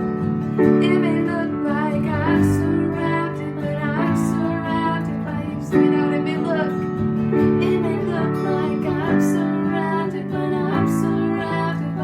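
A song sung with acoustic guitar accompaniment: a sung melody over held, strummed guitar chords.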